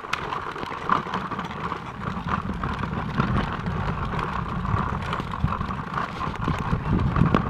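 Hard plastic wheels of a toddler's ride-on tricycle rolling over rough pavement: a steady rumbling rattle full of small clicks and knocks.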